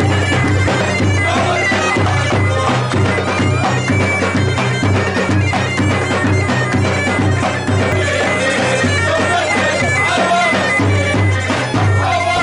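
Loud music with a steady, pulsing bass beat and a droning wind-instrument sound.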